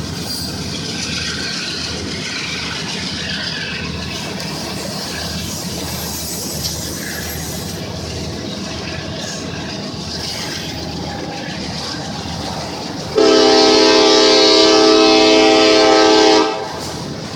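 A train rolling past with a steady rumble and clatter; near the end, a loud air horn sounds one long blast of several tones together for about three seconds, then cuts off.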